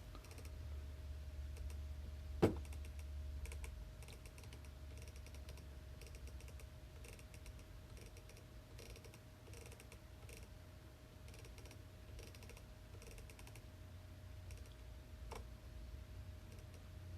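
Computer keyboard typing in scattered runs of light key clicks, with one sharper click about two seconds in, over a faint steady hum.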